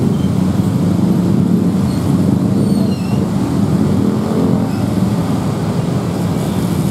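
Dense motorcycle and scooter traffic, with cars among them: many small engines running together and pulling away across a railway level crossing as it reopens.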